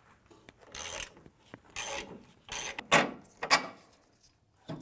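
Hand socket ratchet clicking through about five back-and-forth strokes as it loosens the lower mounting bolt of a truck's rear shock absorber.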